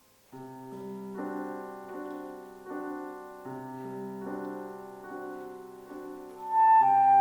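Keyboard accompaniment playing slow, sustained chords that change about every second. Near the end a flute enters loudly over them with a held melody note.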